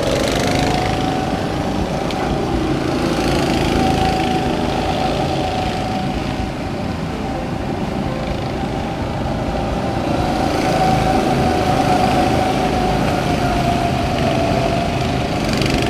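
Go-kart engines running as several karts lap the track: a steady small-engine drone whose pitch wavers slightly.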